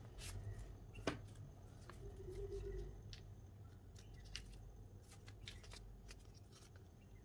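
Faint rustling and light taps of folded paper origami heart bookmarks being laid down and picked up by hand, with a sharper tap about a second in.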